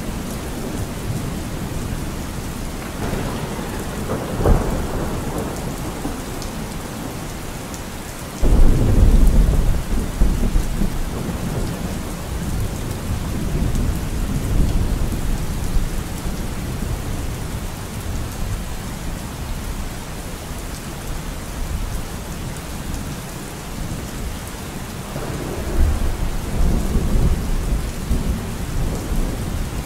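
Steady rain with rolls of thunder. A loud, sudden clap and rumble comes about eight seconds in, with fainter rumbles around four seconds and again near the end.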